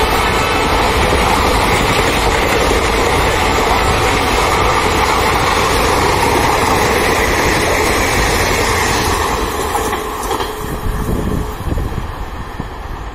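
Indian Railways ICF passenger coaches running past at speed: a loud, steady noise of wheels on rail that drops away about ten seconds in as the last coach clears.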